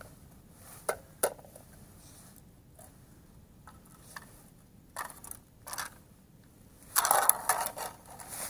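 Handling of a plastic ice-fishing tip-up at a hole in the ice: a few sharp clicks and knocks, then near the end a louder, longer crunching of slushy ice and water as the tip-up is pulled off the hole and a hand goes in.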